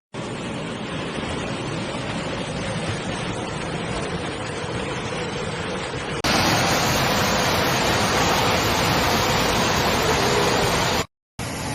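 Rushing floodwater: a steady, even rush of water noise across two clips, getting abruptly louder and brighter about six seconds in, with a brief dropout near the end.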